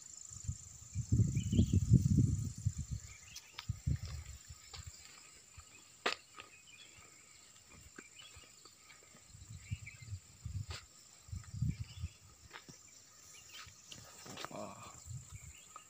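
Wind gusting on the microphone, a low rumble that is loudest from about half a second to three seconds in and comes back between nine and twelve seconds. Behind it there is a steady high insect drone, with scattered clicks and rustles from handling and from walking through the crop plants.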